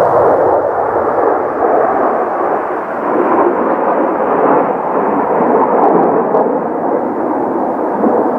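Loud, irregularly surging roar of Kawasaki T-4 jet engines, mixed with strong gusting wind buffeting the microphone; the hiss in the roar fades about half a second in.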